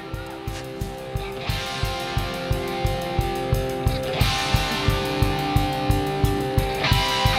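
Background music: guitar over a steady beat of about four strikes a second.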